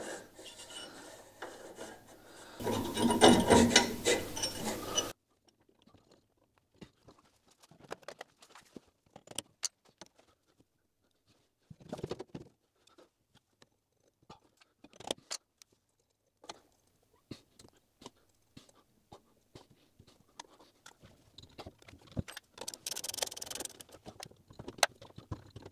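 Small steel parts of a band saw gearbox's shift mechanism being fitted by hand. A shaft rubs and scrapes against the housing a few seconds in, then come scattered light clicks and taps of metal and tools.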